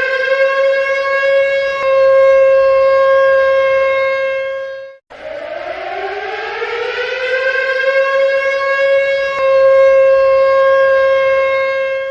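Warning siren sound effect: a siren tone winds up in pitch and then holds a steady wail. About five seconds in it cuts off abruptly, then starts again with a rising wind-up and holds steady once more.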